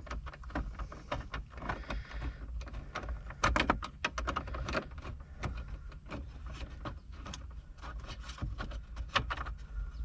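Irregular clicks and taps of a hand screwdriver working the screws on top of a car stereo in the plastic dash, with a quick cluster of sharper clicks about three and a half to five seconds in.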